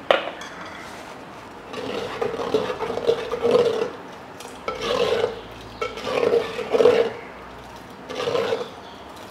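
A wooden spoon scraping and stirring inside a clay pot of rice gruel, in several bouts with short pauses and a ringing note from the pot, mixing in salt just added. A sharp knock sounds at the very start.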